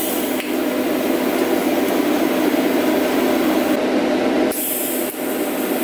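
TIG welding arc hissing and humming steadily while a stainless steel elbow is tack-welded to a V-band flange. The high part of the hiss drops away and then comes back brighter for a moment about four to five seconds in.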